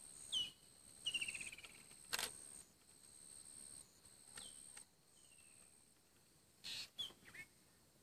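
Wild birds calling: short downward-sliding whistles and a quick trill of rapid notes about a second in, with a sharp click just after two seconds and a brief burst near the end. A thin, steady high tone runs underneath.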